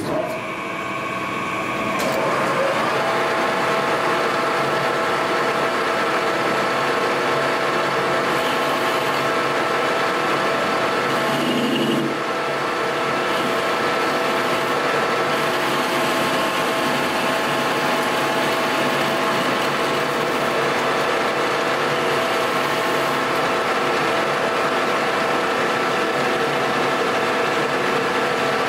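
Metal lathe running with its chuck spinning, a steady mechanical whine from the gear drive. It comes up to speed over the first couple of seconds and then holds level, with a brief change in tone about twelve seconds in.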